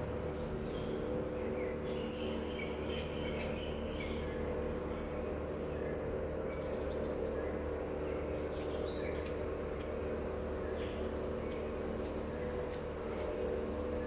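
Steady high-pitched drone of rainforest insects, with a low steady hum underneath and a few faint bird chirps in the first few seconds.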